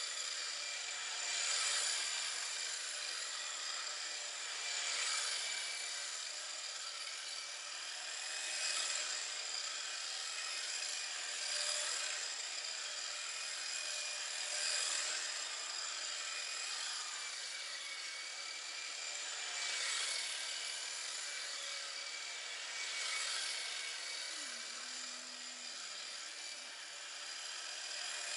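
Tamiya TT-01 radio-controlled car's brushed Light-Tune electric motor and drivetrain whining at a steady high pitch, with tyre hiss on concrete. The sound swells and fades about every three seconds as the car circles past.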